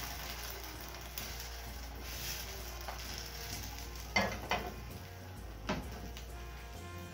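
Beaten eggs sizzling as they fry in a pan on a gas burner, with a few sharp knocks between about four and six seconds in as the pan is moved on the stove.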